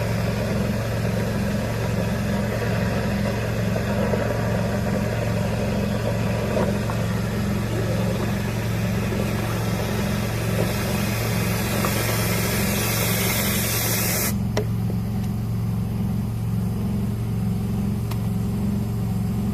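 A motor running steadily with a low hum, with a rushing air hiss over it that grows brighter and then cuts off suddenly about two-thirds of the way through, while the hum carries on.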